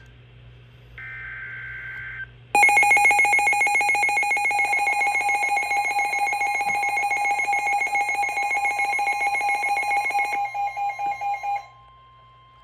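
Emergency Alert System tones. A burst of rapid warbling data tones ends about two seconds in. Then a loud, distorted two-tone EAS attention signal sounds for about nine seconds, pulses briefly and cuts off, and a fainter steady tone lingers a moment longer. Together they mark the start of an emergency alert broadcast.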